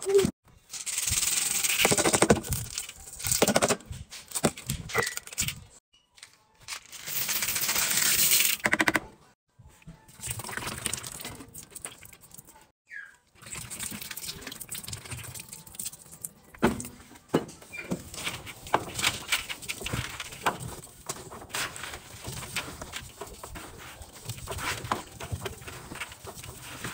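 Laundry detergent powder poured into the empty steel drum of a top-loading washing machine in three loud, hissing pours. After that, a scoop and a hand work the heaped powder, giving a run of soft crunches and crackles.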